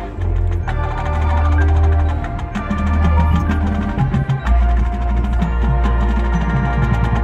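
Marching band playing its field show: full wind chords over a sustained low bass, with sharp percussion strikes from the front ensemble and drums. The chords shift to new ones a few times.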